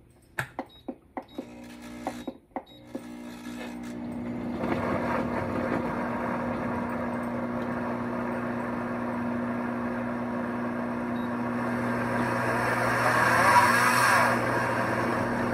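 Countertop blender: a few clicks at its controls, then about four seconds in the motor starts and runs steadily, chopping crumbled pressed tofu into a thick ricotta mix. It grows louder for a moment near the end.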